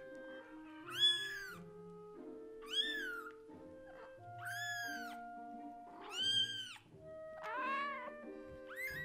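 A very young kitten meowing loudly and repeatedly, about six high-pitched cries roughly every second and a half, each rising and then falling in pitch. It is calling for the adult cat. Soft background music plays underneath.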